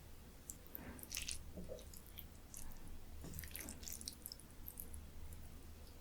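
Close-miked chewing with wet, sticky mouth clicks and smacks, faint and irregular, a cluster about a second in and more between three and five seconds.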